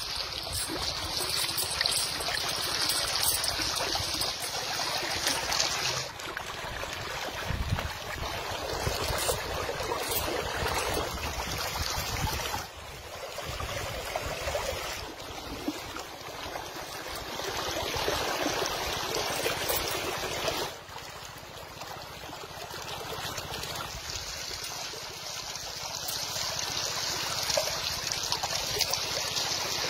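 Shallow river water running and trickling over rocks and sand in a steady flow, its loudness changing abruptly three times.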